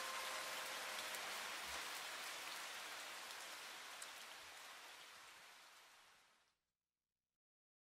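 Recorded rain, an even patter with faint scattered drops, fading out over about six seconds into silence. A held musical note dies away under it in the first second.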